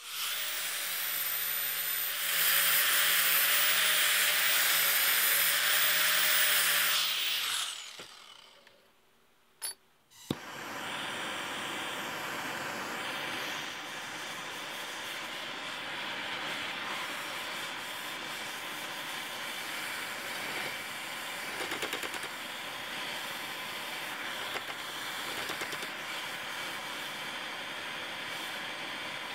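A horizontal metal-cutting bandsaw running and cutting steel, with a steady whine, then winding down after about seven seconds. A click follows, and a handheld gas torch lights and hisses steadily as it heats a slotted steel tab clamped in a vise for bending.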